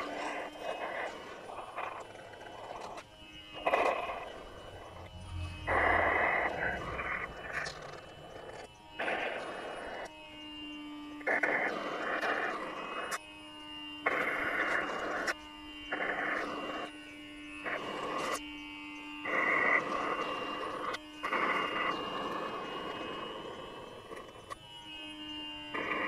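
Suction machine drawing stingless-bee honey out of opened honey pots through thin tubes. A steady hum is heard with a hissing rush of air and honey that comes and goes every second or two as the tube tips are moved from pot to pot.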